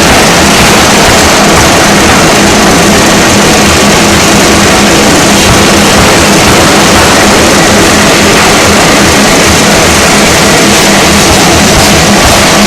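Pneumatic forging hammer running: a loud, steady, distorted mechanical din with a low hum underneath.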